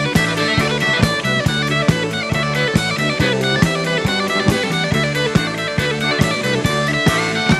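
Instrumental rock music: electric guitar playing a lead line over a steady drum-kit beat, with no singing.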